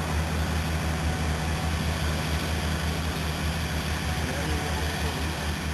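Massey Ferguson tractor's diesel engine running steadily while ploughing: a deep, even drone. Faint voices come in near the end.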